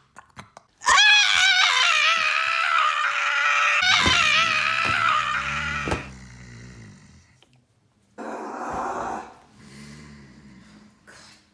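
A person making exaggerated comedic snoring noises: a long, high, wavering wail of about five seconds, joined near its end by a low rumbling snore. After a pause come a short breathy snort and some faint low groans.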